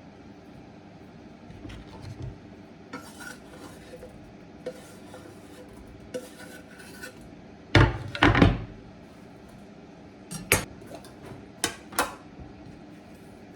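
Kitchen dishes and utensils clinking and knocking: scattered light clicks, a louder cluster of clatter about eight seconds in, then a few sharp knocks near the end.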